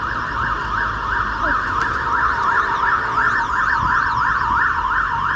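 Emergency vehicle siren in a fast yelp, its pitch sweeping rapidly up and down without a break.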